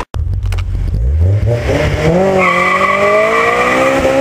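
Honda S2000's four-cylinder engine, fitted with an HKS exhaust and test pipe, revving up under hard acceleration, its pitch climbing steadily. About two and a half seconds in the tyres start a steady squeal that holds to the end.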